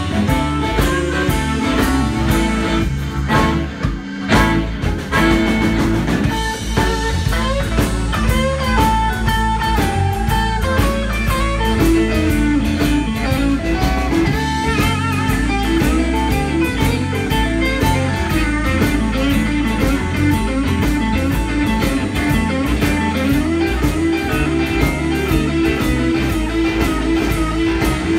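Live blues band playing an instrumental passage: a harmonica cupped against a vocal mic over two electric guitars, keyboard and a drum kit keeping a steady beat.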